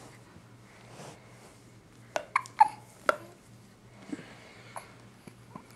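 A baby girl hiccuping: several short, sharp hiccups bunched together a little over two seconds in, with fainter ones later.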